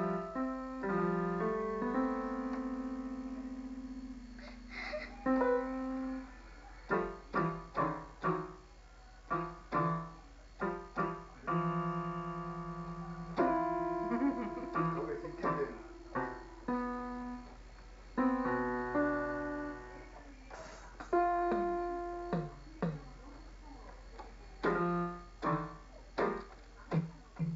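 Electronic keyboard slapped at random by a baby's hands: irregular clusters of several notes struck together, some held and ringing out, others short, with no tune or steady beat.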